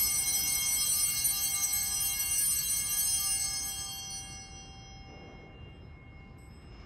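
Altar bell ringing out from a single strike, many high tones fading away over about four seconds. It marks the elevation of the chalice at the consecration.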